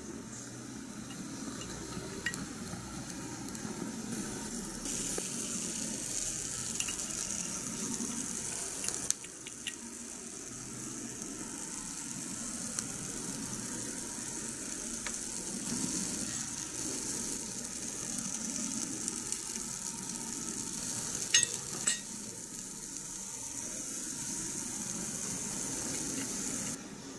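Food sizzling steadily in a miniature pot or pan over a tiny fire, a continuous high hiss. Twice, about 21 seconds in, a sharp light click sounds, and the sizzle cuts off abruptly near the end.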